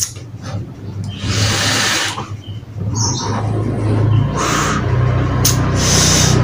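A vaper drawing on a box mod and blowing out large clouds of vapour: several long, breathy rushes of air, about a second in, around four seconds and near the end, over a low steady hum.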